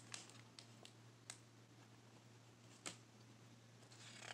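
Near silence: room tone with a low steady hum and a few faint, sharp clicks.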